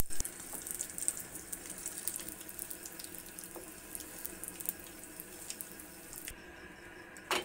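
Cauliflower fritters sizzling and crackling in hot frying oil, the sizzle slowly fading as they are lifted out with a wire skimmer. The hiss cuts off suddenly about six seconds in, and a single sharp knock follows near the end.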